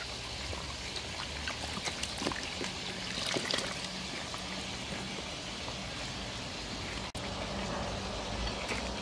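Steady trickle of running water, with a few soft clicks and cuts as green bell peppers are cored with a knife.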